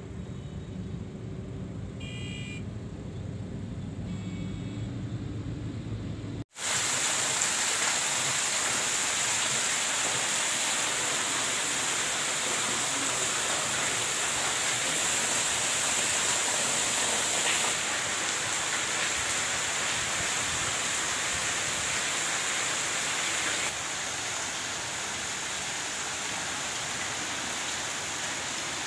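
Low rumble of a car driving along a flooded road, heard from inside the cabin. About six seconds in it cuts off suddenly, and heavy rain takes over as a steady hiss.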